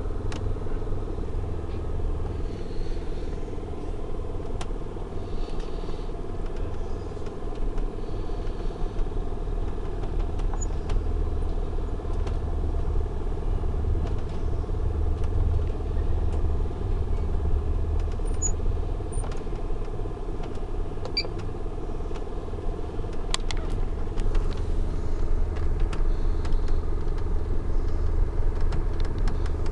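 Steady low rumble inside a moving California Zephyr passenger car as it rolls along the rails, with scattered light clicks and rattles from the car.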